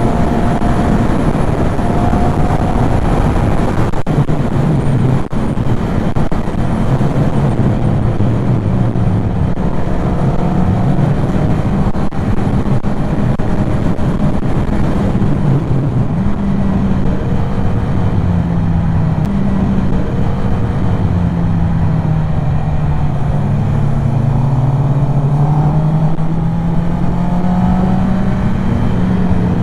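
Motorcycle engine running at road speed under steady rushing wind noise, its note drifting up and down with the throttle.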